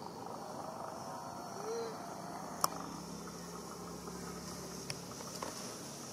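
Outdoor ambience with a steady high insect hum and a faint low drone. A short rising-and-falling call comes a little before two seconds, and a single sharp click sounds near the middle.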